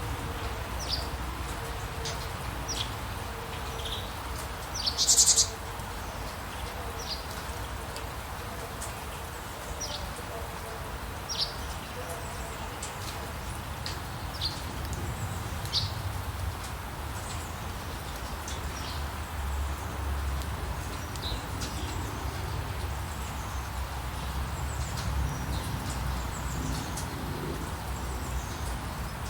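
Wild birds chirping: short, high chirps every second or so, with one louder trill about five seconds in, over a steady low background rumble.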